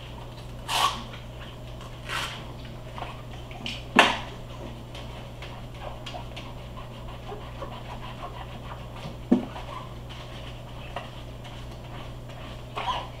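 A dish sponge scrubbing wet latex goalkeeper gloves in a sink of soapy water: soft, irregular swishing and squelching, with a few louder noises, the sharpest a knock about four seconds in.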